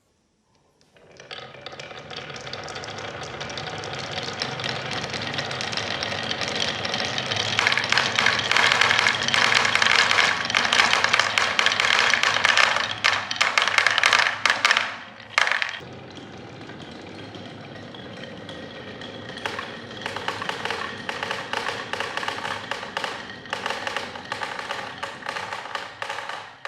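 Many marbles rolling and clattering down wooden slopes, a continuous rumble full of small clicks that builds up and then drops off suddenly about halfway through, continuing as a lighter clatter.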